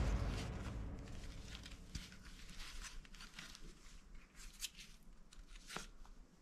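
Background music fading out, then faint crinkling and scattered small clicks of things being handled, like plastic packaging or toy parts.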